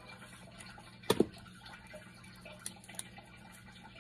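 Scissors cutting paper into raffle tickets, with a loud double knock about a second in and a couple of light clicks a little later.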